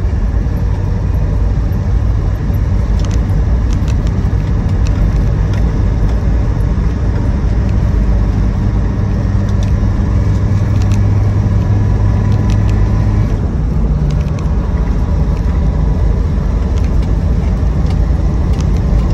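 Inside the cab of a 2004 Land Rover Defender 90 TD5 on the move: the 2.5-litre five-cylinder turbodiesel runs steadily under way over road and tyre noise. The engine note changes about thirteen seconds in.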